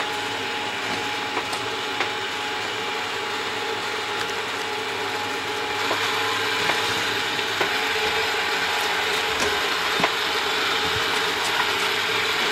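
Electric winch of an open cable lift running steadily as it lowers the cage slowly, a constant mechanical hum with a couple of steady tones and scattered light clicks. It grows somewhat louder about six seconds in.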